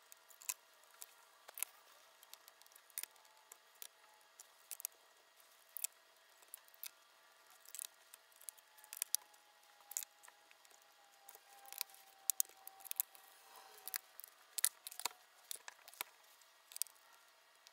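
Small screwdriver driving screws into the plastic base of a laptop: faint, irregular clicks and ticks, coming faster for a few seconds near the end.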